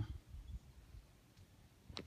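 Quiet pause: faint low background rumble, with a short click near the end.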